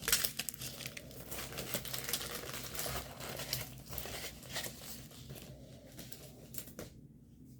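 Plastic packaging crinkling and rustling as it is handled, in irregular crackles that thin out near the end.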